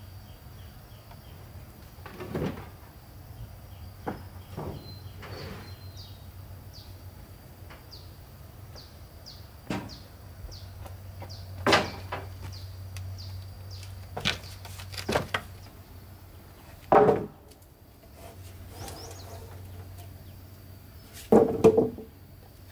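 Irregular knocks and clunks, a few seconds apart, the loudest near the end, over a steady low hum, with short high bird chirps in between.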